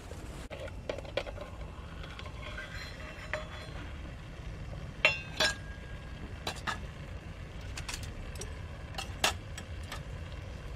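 Twig fire crackling in a small folding stove under a stainless steel cup, over a steady low background. A few sharp pops come through, the loudest pair about five seconds in and another pair about nine seconds in.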